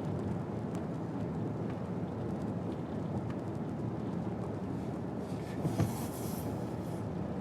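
Steady low road and engine noise inside a moving car's cabin, with a brief rustle and a soft knock about six seconds in.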